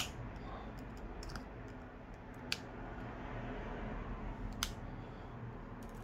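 Faint, scattered light clicks and ticks of a small precision screwdriver working the tiny screws out of a smartphone's midframe, with three sharper clicks spaced a couple of seconds apart.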